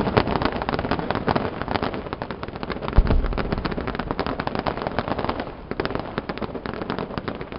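Fireworks display: a dense, rapid crackling of many small bursts, with a sharp bang at the start and a loud bang with a deep boom about three seconds in.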